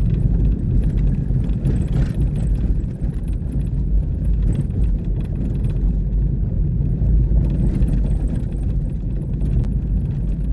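A vehicle driving, heard from inside the cabin: a steady low road rumble with frequent small rattles and knocks.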